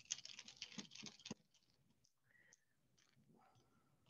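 Faint rapid clicking and scraping of a small screwdriver turning tiny screws out of a Logitech T630 mouse's plastic housing. It stops after a little over a second, leaving near silence with a few soft ticks.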